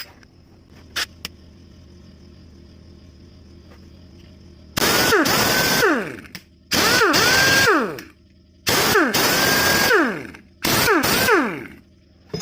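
U-156 air impact wrench, freshly serviced with a new clutch hammer set, run free in four bursts of about a second each. Each burst spins up to a steady high whine with a rush of air, then winds down as the trigger is let go.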